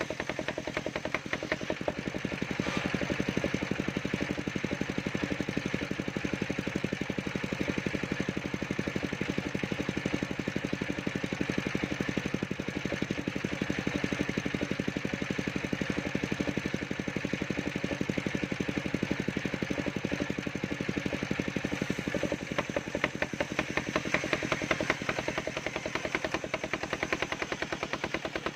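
Engine of a circular sawmill running steadily with a fast, even beat.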